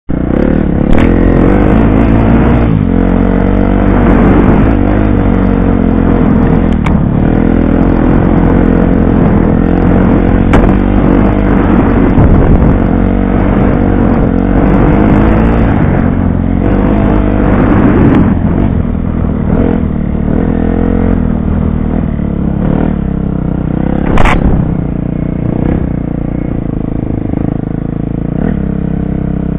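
Dirt bike engine running hard with the revs rising and falling as the rider works the throttle along a trail, heard up close from the bike itself. It eases to lower revs about two-thirds of the way through, and one sharp knock stands out near the end.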